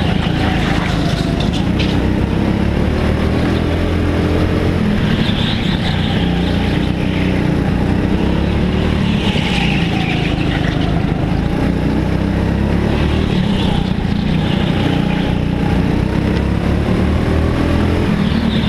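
Racing go-kart engines running hard at speed, their pitch rising and falling as the karts accelerate out of corners and ease off into them.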